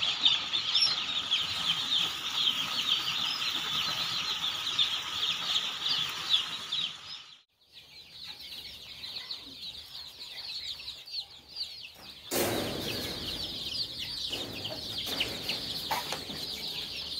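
A brooder full of day-old chicks peeping all together, a dense chorus of short high-pitched peeps. About seven seconds in the sound drops out for a moment, then the peeping returns over a low background rumble.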